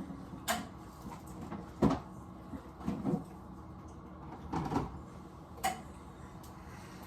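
A handful of separate knocks and clatters of household objects being handled and set down, about five in all, the loudest nearly two seconds in, over a low steady hum.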